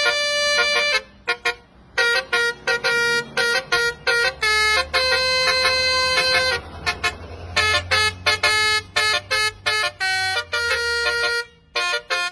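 Horns sounding in a quick run of short blasts of several different pitches, with brief gaps between them, over a low rumble.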